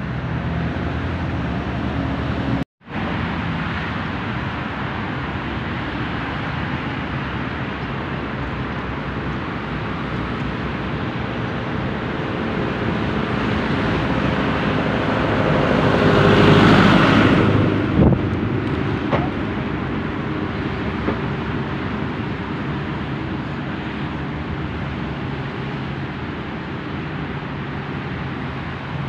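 Steady road traffic, with one vehicle passing close and loud about two-thirds of the way through, followed by a short knock. The sound cuts out completely for a moment about three seconds in.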